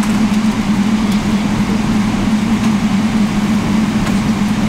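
Steady cabin noise inside a Boeing 777-300ER taxiing to the runway: a constant low hum over an even rushing sound from the engines at taxi power and the airflow.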